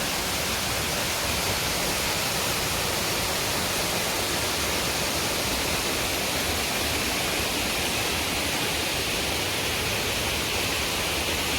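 Water rushing steadily down a waterfall, a constant even hiss.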